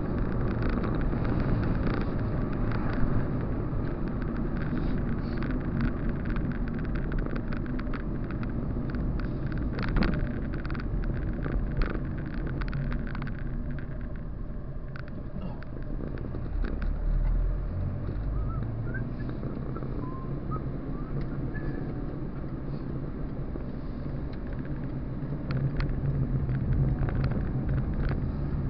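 Car engine and tyre road noise heard from inside the moving car, a steady low rumble with scattered light clicks and knocks. It eases off about halfway through, as the car goes round a roundabout, then builds again as the car pulls away.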